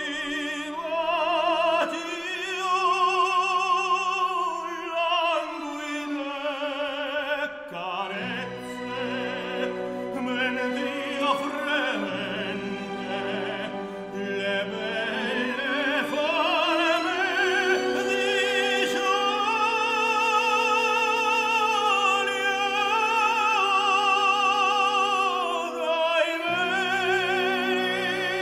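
Background music: a classical operatic voice singing long, held notes with wide vibrato over orchestral accompaniment.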